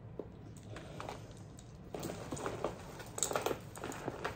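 Tissue paper rustling and crinkling as hands dig through the paper stuffing of a piñata, in irregular crackles that get louder and busier in the second half.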